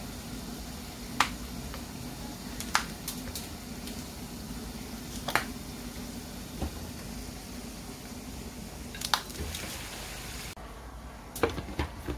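A few separate sharp clicks and taps of a metal spoon and hands against a glass bowl and a plastic blender cup as chopped onion and green chillies are put in, with a cluster of plastic clicks near the end as the blender's blade base is fitted onto the cup. A faint steady hum runs underneath.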